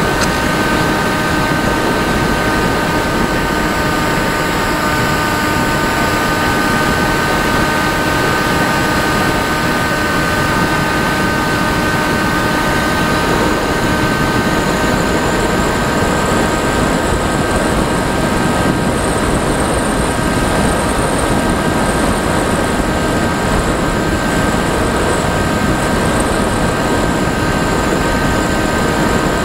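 Electric motor and propeller of an FPV radio-controlled model aircraft running at a steady throttle, heard from the onboard camera as a constant whine over heavy wind rush.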